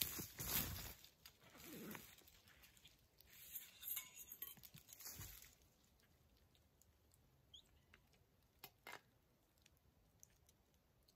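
Dry fall leaf litter crunching and rustling underfoot, along with pack gear being shuffled, for the first five seconds or so. Then it goes near quiet, broken by a few small sharp clicks.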